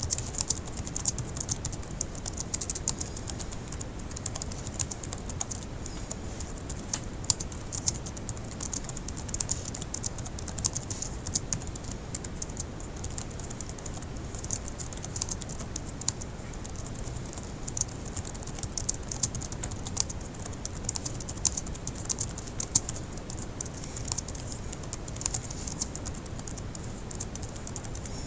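Fast typing on a laptop keyboard: a steady stream of quick, irregular key clicks.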